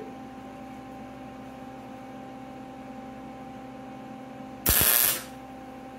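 Steady electrical hum, then about four and a half seconds in a single half-second burst of MIG welding arc crackle as a short tack is laid with 0.023 wire, the welder turned down after running too hot.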